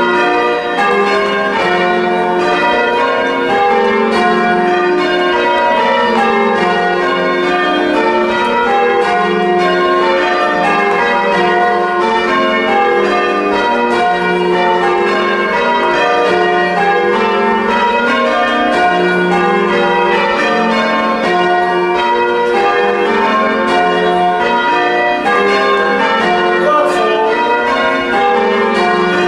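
Church tower bells rung full-circle in changes, ringing plain hunt: a steady, evenly paced succession of bell strikes, each bell's note overlapping the next.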